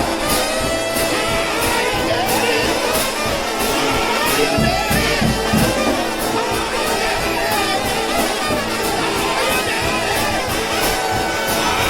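Brass shout band playing up-tempo church music, with a cymbal keeping a steady beat of about two strokes a second.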